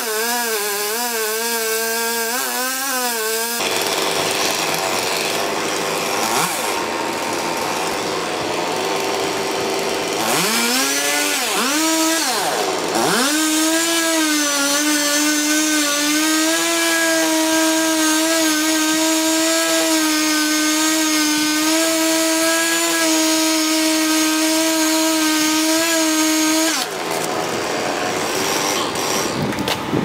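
Petrol chainsaw running at high revs while cutting through a tree trunk. Its pitch wavers at first, dips and climbs again a little before the middle, then holds steady at full throttle before falling away a few seconds before the end.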